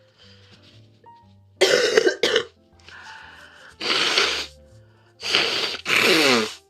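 A young woman coughing hard with a throat cold that has not yet cleared, in five harsh coughs. A pair comes about one and a half seconds in, then a single cough, then another pair near the end; the last cough drops in pitch with her voice in it.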